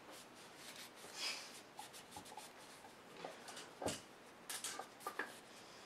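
Microfiber cloth rubbing over a Springfield XDS pistol slide as it is wiped down, in faint scattered strokes, with a light knock nearly four seconds in.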